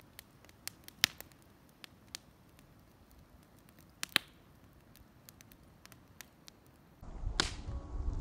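Large wood campfire crackling, with scattered sharp pops, the loudest about a second and about four seconds in. About seven seconds in, a louder low rumble with music comes in over it.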